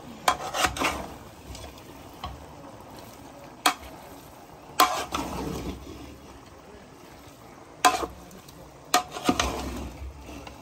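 A metal ladle stirring and turning buffalo meat chunks with onions in a large metal pot, with a soft mixing noise and sharp clanks against the pot every one to three seconds.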